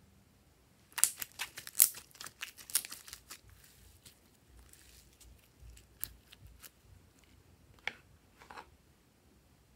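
Glossy slime squeezed and folded by hand: a quick run of sharp clicks and pops from about a second in, thinning to a few scattered pops in the second half.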